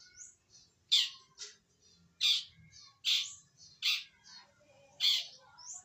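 Young wild-caught long-tailed shrike calling as it starts to find its voice: five loud, harsh squawks about a second apart, with softer short chirps in between.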